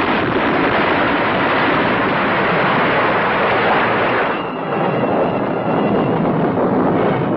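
A loud, steady roar of noise on the soundtrack of old earthquake footage, with a brief dip about four seconds in; it stops suddenly near the end.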